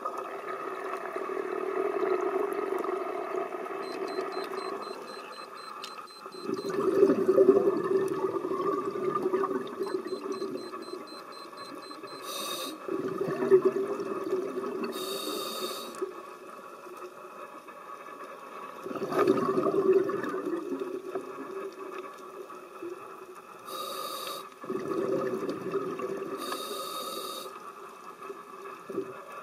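A scuba diver breathing through a regulator underwater: a rush of exhaled bubbles about every six seconds, with short hissing inhalations between them, over a steady underwater hum.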